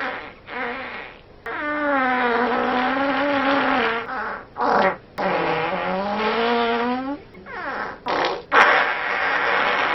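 A run of fart sound effects, one after another. Two short ones come first, then two long, pitched farts of about two to three seconds each, the second dipping and then rising in pitch. A few quick short blasts follow, then a rougher, noisier one near the end.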